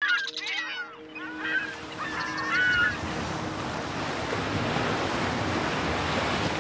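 Ocean surf washing onto a sandy beach, a steady wash that grows gradually louder. Several bird calls sound over it in the first three seconds, with a steady low tone beneath them.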